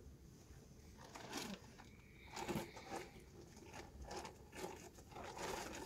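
Faint scattered rustling and small clicks and crunches, like things being handled close by, in a pause in the talk.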